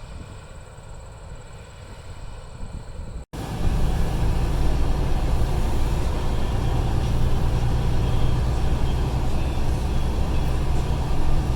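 Vehicle engine and road noise heard from inside the cab: a loud, steady low rumble. It begins at an abrupt cut about three seconds in, after a quieter, more distant rumble.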